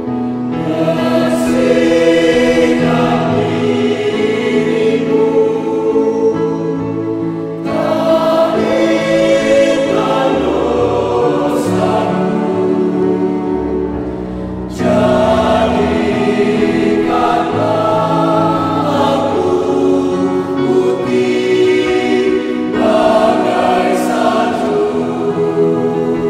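Mixed choir of men's and women's voices singing in parts, with sustained notes. The phrases break briefly about 8 and 15 seconds in, and the second entry comes in louder.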